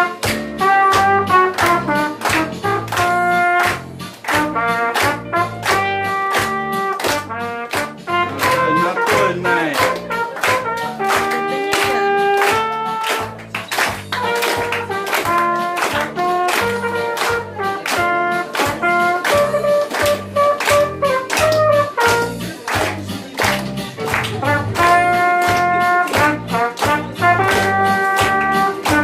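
Trumpet playing a melody in phrases of held notes over an accompaniment with a steady beat.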